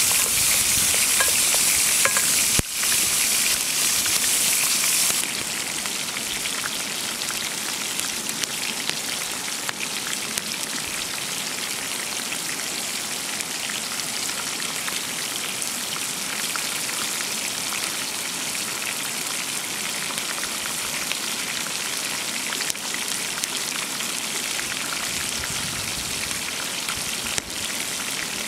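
Chicken thighs and sliced onion sizzling in oil in a frying pan, with fine crackles throughout. The sizzle is louder and brighter for about the first five seconds, then settles to a steady, quieter level.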